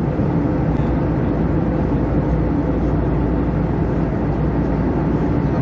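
Steady drone of an Airbus A321 cabin in cruise: engine hum and rushing airflow heard from inside the cabin, even in level with no change.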